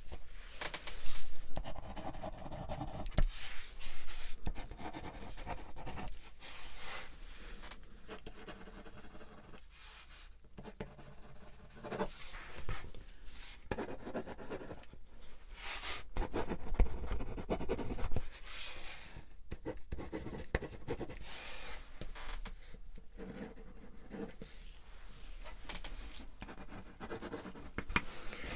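Close-up scratching and rubbing sounds in irregular strokes, each a second or so long, like a pen scribbling on paper or a fingertip rubbing a surface near the microphone.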